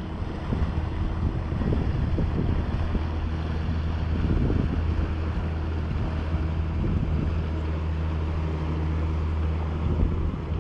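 Outboard motor of a passing half-cabin fishing boat running at a steady pitch, with wind rumbling on the microphone.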